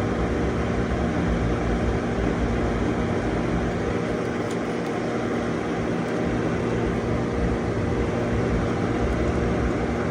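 Steady hum and airy rush of a car with its ignition on while a key is being programmed, unchanging throughout.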